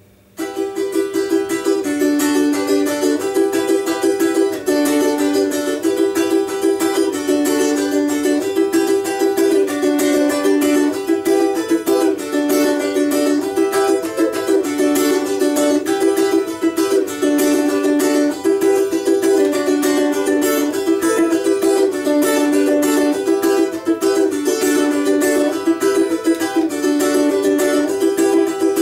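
Four-string balalaika with a doubled first string, tuned to open D major, played with fast continuous strumming that starts about half a second in and carries a tune. Its strings are laid on the first fret through deepened nut slots and tied down with cord, so that it plays in tune up the neck.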